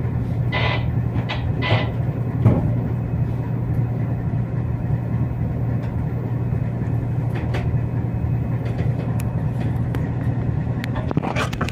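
Steady low drone of a cargo ship's engine while it is under way. There are two brief higher-pitched sounds in the first two seconds and a single knock about two and a half seconds in.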